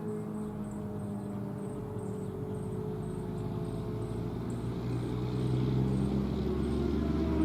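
Federal Signal Thunderbolt 1000A storm siren during a test, its steady tones slowly falling in pitch as it winds down, with other sirens going off in the distance. A low rumble builds over the last few seconds.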